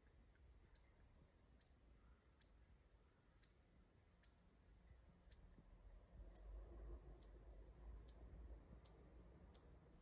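Near silence broken by faint, high, sharp clicks about once a second.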